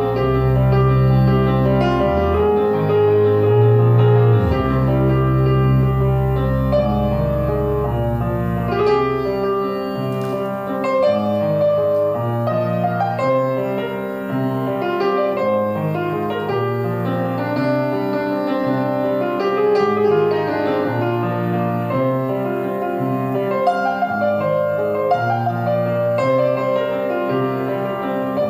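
Grand piano playing chords and melody, with long held low notes from a six-string electric bass underneath that stop about a third of the way in, leaving the piano on its own.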